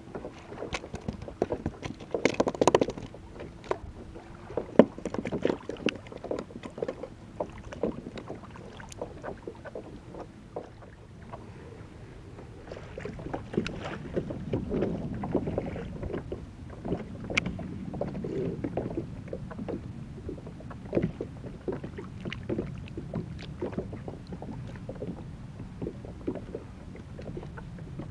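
Sea water lapping and sloshing against a small kayak's hull, swelling and fading, with many small clicks and knocks throughout; the loudest knocks come about two to three seconds in and a sharp one a little later.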